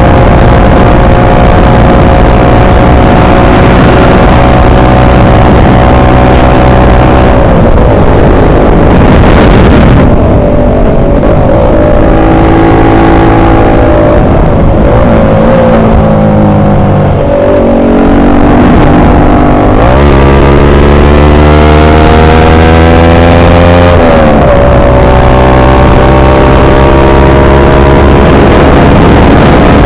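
Motorcycle engine running on the move, heard from on the bike with heavy wind noise. About halfway through the engine eases off and slows, then the revs climb twice in quick succession with a drop between as it shifts up, and it settles to a steady cruise.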